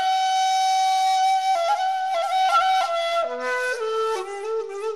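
Solo flute playing a slow melody. It opens on a long held note, then steps down through several shorter, ornamented notes and settles on a lower held note with vibrato near the end.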